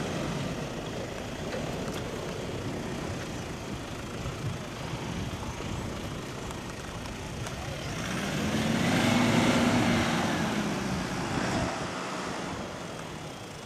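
4x4 off-road vehicle engine running, its pitch and level rising and then falling back about two-thirds of the way through as it is revved or driven past close by.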